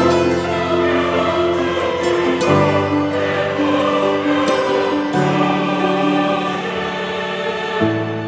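Background music of long held, choir-like notes, the chord changing about every two and a half seconds.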